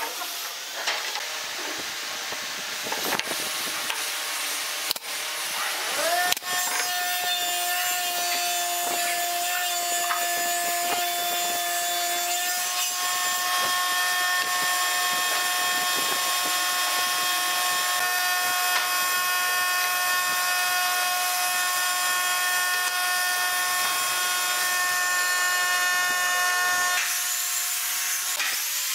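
Wooden pieces knock and clatter for the first few seconds. Then an electric power tool's motor spins up about six seconds in and runs with a steady whine, stopping near the end.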